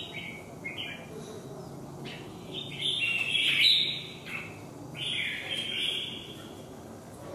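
Red-whiskered bulbul singing: a few short chirps near the start, then two loud phrases of song, the first about midway and the second a second or so later.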